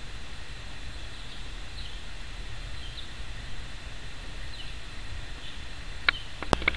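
Outdoor ambience at a rural railway station: a steady low rumble with faint, short bird chirps every second or two, and a few sharp clicks near the end.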